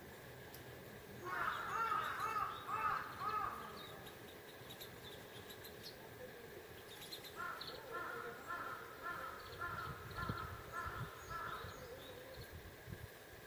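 A bird calling in two runs of repeated notes: a loud, quick run about a second in, then a slower, even series of about ten notes from around seven seconds in. Some low rumbling comes near the end.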